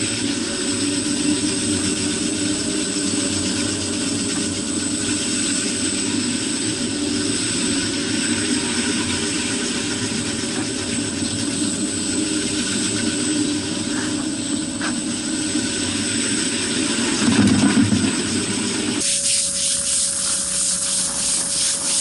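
Walk-behind concrete floor grinder fitted with 100-grit metal diamonds, running steadily as it grinds a wet concrete slab. About 19 seconds in the grinding stops and a pressure washer starts spraying with a hiss, washing the grinding slurry off the surface.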